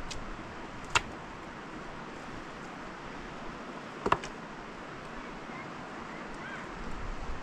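Two sharp knocks about three seconds apart, the second one doubled, over a steady background hiss.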